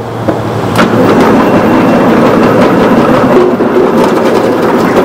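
Commercial vegetable cutting machine running and chopping carrots fed into its feed tubes: a loud, steady rattling clatter that builds up within the first second.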